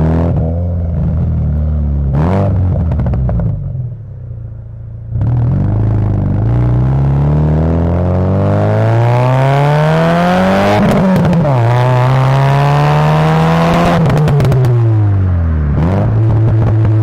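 Subaru Legacy's boxer engine running through an aftermarket exhaust with a freshly replaced exhaust gasket. It idles with a quick blip, then revs up in a long rising pull, dips briefly, climbs again and holds, and falls back to a steady idle near the end.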